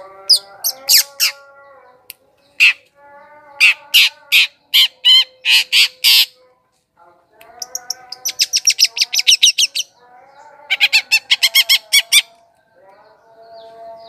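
Long-tailed shrike (cendet) singing: bouts of sharp, high chattering notes, including two fast trills in the second half, over a lower buzzy, nasal tone.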